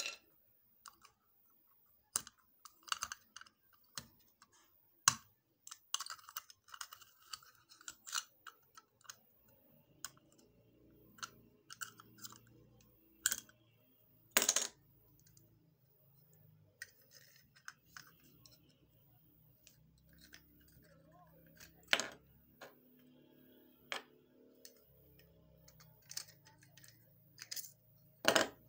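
Scattered light clicks, taps and small knocks of hands handling a plastic LED bulb and small parts on a wooden table, with a faint low hum under the second half.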